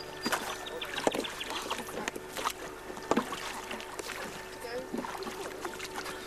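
Scattered knocks and clunks aboard a small yacht as people move about the boat, with faint voices.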